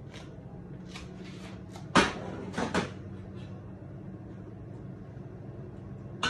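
A heavy cooking pan set down on the stovetop: one sharp knock about two seconds in, then two lighter knocks, over a steady low hum.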